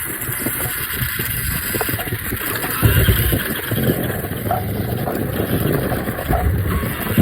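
Wind rushing over the microphone with a low rumble while moving at speed. There are louder bumps of rumble about three seconds in and again near the end.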